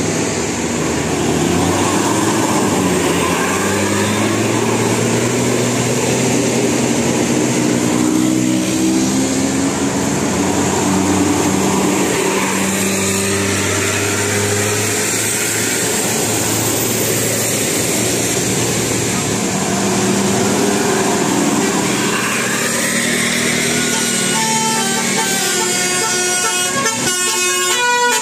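Bus 'telolet' multi-tone air horn playing a long melody of held notes that step from one pitch to another, with a quicker run of higher notes near the end.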